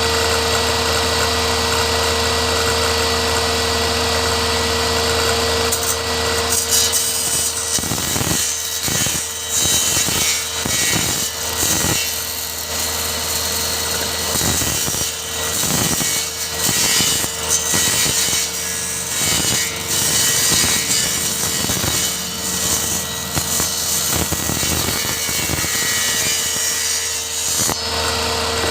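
Circular saw running free with a steady whine, then cutting through a small piece of HPL laminate from about six or seven seconds in: the steady note drops out and the sound turns rough and uneven. Near the end the cut finishes and the blade spins free again with the same steady whine.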